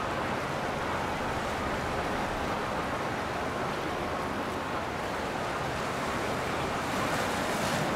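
Steady rushing noise of water and wind on the river, with a faint steady hum beneath it.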